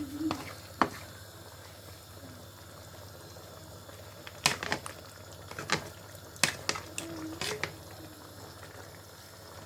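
Thick chicken stew bubbling in a pot, with scattered sharp pops over a steady low hum.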